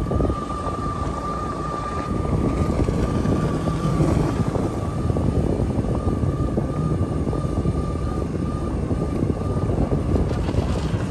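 Jet ski engine running steadily: a loud low rumble with a high whine held at one pitch.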